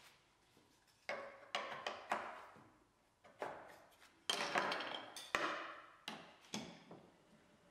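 A red plastic insert ring being lifted out of a router table's insert plate and set down with tools on the tabletop: about nine irregular clicks, knocks and clatters, loudest around the middle.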